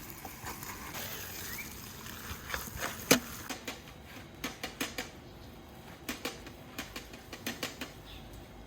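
Hands kneading and mixing minced beef with its seasoning in a bowl: irregular wet squishes and slaps, with one sharp click about three seconds in.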